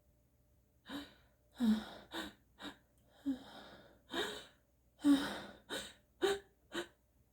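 A person's sneezing fit: about ten short gasping breaths and sneezes in quick succession, starting about a second in.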